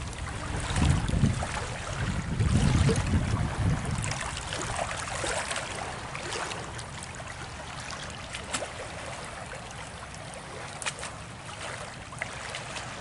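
Shoreline ambience at low tide: wind rumbling on the microphone in the first few seconds, a faint wash of shallow water, and scattered crunches of footsteps on wet shingle and stones.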